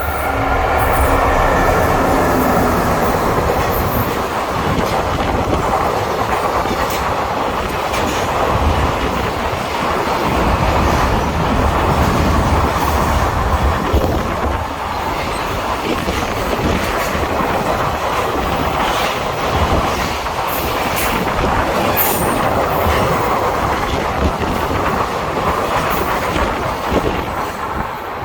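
Freight train running through a station: a long rake of freight wagons rolling past steadily, wheels clicking over the rail joints throughout. A few falling tones are heard in the first few seconds.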